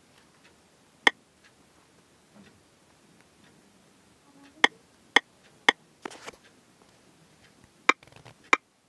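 Sharp single clicks of keypresses on a phone's touchscreen keyboard, six in all: one about a second in, three about half a second apart near the middle, and two near the end, with a brief soft rustle between them.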